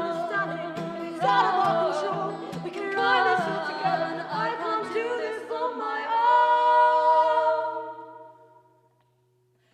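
Two women's voices singing in harmony over acoustic guitar, a live folk-rock song. About two-thirds of the way in, the voices settle into one long held chord that fades away into a brief near-silent pause just before the end.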